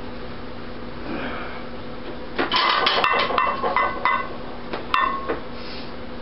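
Metal weights clanking together and ringing briefly: a run of clanks about two and a half seconds in lasting over a second, then one more clank about five seconds in. A steady low hum runs underneath.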